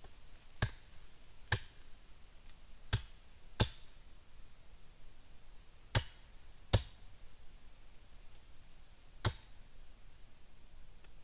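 Sharp knocks of wooden stakes being pounded into the logs of a bench seat. There are seven separate blows at an uneven pace, several in pairs about a second apart.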